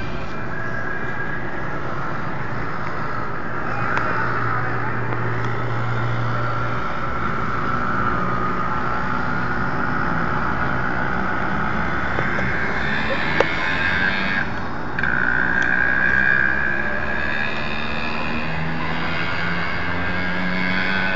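Road traffic: motor vehicle engines running steadily, with a single sharp click a little past the middle and a louder stretch soon after.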